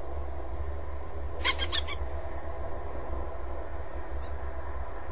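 A bird gives a quick run of about four sharp, harsh calls about one and a half seconds in, over a steady low hum.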